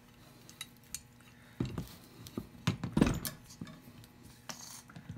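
Metal clamps being handled and fitted to a glued-up wooden block: a scatter of metallic clinks and knocks, the loudest about three seconds in.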